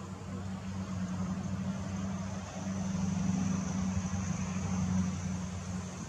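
Low, steady engine drone that swells to its loudest midway and then eases off, with a thin steady high-pitched whine above it.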